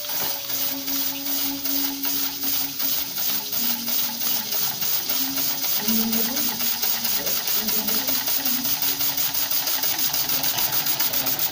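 Homemade mini steam engine running, its cylinder made from aluminium pipe puffing steam in a fast, even chuff as the flywheel spins, over a steady hiss of escaping steam.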